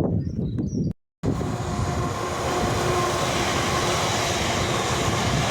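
A train running past on the railway line close beside the path, a steady rushing rumble with a faint steady whine. The sound cuts out briefly about a second in, then the train noise carries on.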